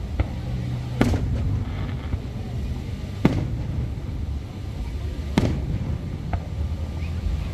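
Aerial firework shells bursting overhead: three loud bangs about two seconds apart, with a couple of fainter pops between them, over a steady low rumble.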